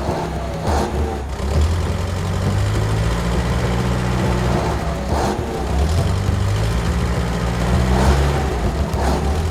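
Truck engine running with a low, steady hum whose pitch steps up and down a little, as if the vehicle is driving.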